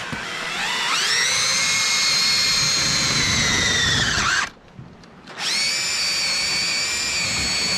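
Makita cordless drill running in two long runs, each spinning up to a steady whine as its bit works into a diamond-plate mount for a dredge foot pump. The first run winds down and stops about four and a half seconds in, and the second starts about a second later.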